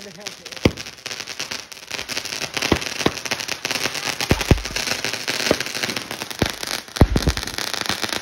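Firecrackers going off: a continuous dense crackle with sharp pops and louder bangs every second or so, the loudest bang about seven seconds in.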